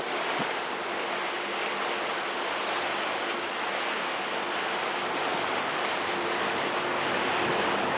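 Steady hiss of wind and choppy river water lapping, with no distinct events.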